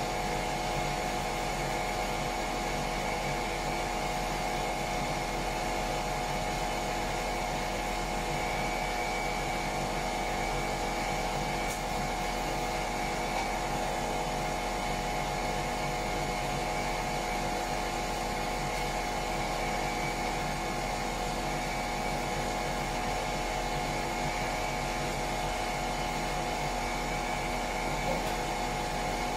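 Electric sander running continuously on the bilge surface: a steady motor whine over a constant low hum, with no let-up.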